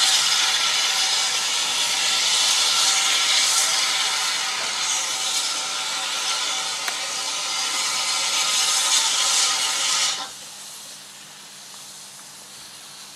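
A standing steam tank locomotive letting off steam in a loud steady hiss, which cuts off suddenly about ten seconds in, leaving a much quieter hiss.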